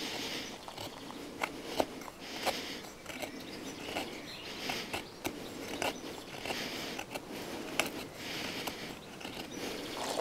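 A Cold Steel Survivalist knife blade shaving thin curls off a piece of wood, carving a feather stick. The short scraping strokes repeat about once a second.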